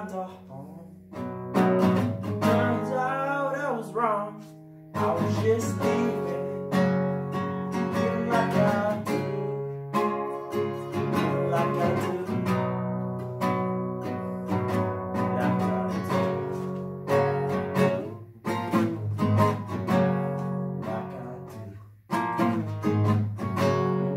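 A man singing to his own nylon-string classical guitar, strummed and picked chords. A sung line with wavering pitch stands out about two seconds in, and the guitar carries on under and after it, with two short breaks.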